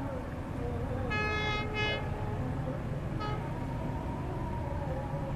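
Diesel locomotive horn sounding two blasts about a second in, the second one shorter, then a brief toot about two seconds later, over a steady low rumble from the approaching train.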